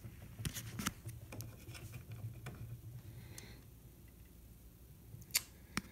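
Faint clicks and light taps of a small nail and solid oak rocking-chair parts being handled, with two sharper clicks near the end, over a steady low hum.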